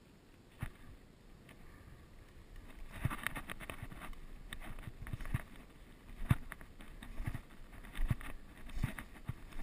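Footsteps through dry leaves and undergrowth, with brush rustling, starting about three seconds in as a run of irregular crunches and knocks.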